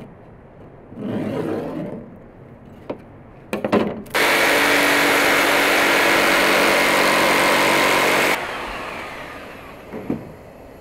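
A few clicks, then a small high-speed electric motor switches on abruptly and runs steadily for about four seconds. It is switched off and spins down with a falling whine.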